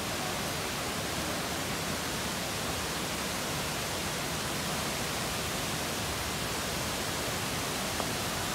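Steady rushing of water from a waterfall and a fast-flowing stone channel running beside the path, an even, unbroken roar.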